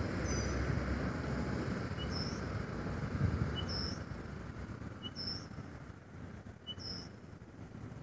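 A bird repeating a short, high two-part call, a brief lower note and then a higher one, about every one and a half seconds, five times, over a low background rumble that slowly fades.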